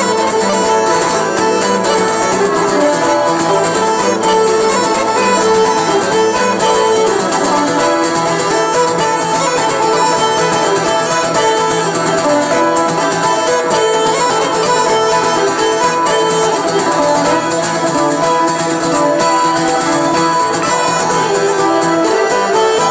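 A live Irish traditional band plays an instrumental tune, with fiddle over plucked strings.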